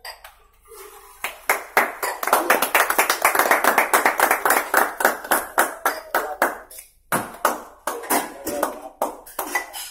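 A small group clapping fast and together, with voices mixed in. The claps thin out near the end.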